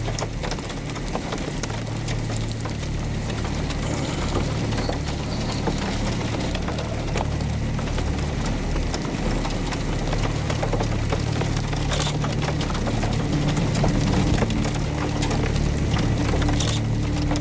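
Vehicle running with a steady low engine and road hum, with scattered light ticks.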